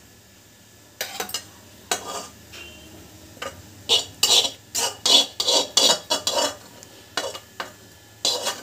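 Spatula scraping cooked onion-tomato masala out of a pan and knocking against the rim of a steel mixer-grinder jar. A string of short scrapes and taps starts about a second in and comes quickest in the middle.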